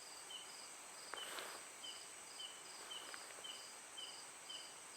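Night insects: a steady high-pitched buzz with a short chirp repeating about twice a second. A brief soft hiss comes about a second in.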